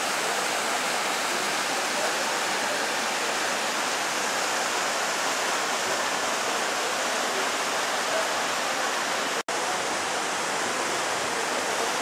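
Steady rush of a river waterfall and rapids pouring over granite boulders. The sound cuts out completely for an instant about nine and a half seconds in.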